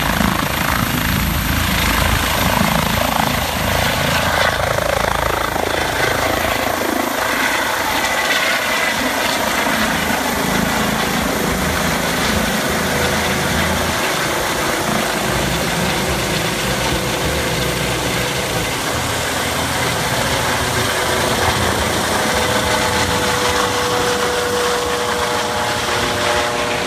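Eurocopter EC135 air-ambulance helicopter lifting off and climbing away overhead: loud, steady rotor and turbine noise, with a faint steady whine in the last few seconds.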